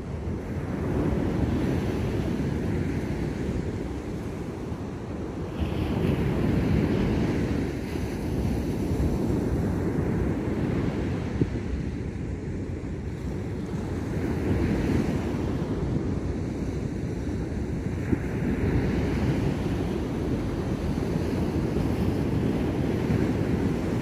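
Ocean surf breaking on a beach, waves rolling in and washing up the shore, the rushing noise swelling louder every few seconds as each wave breaks.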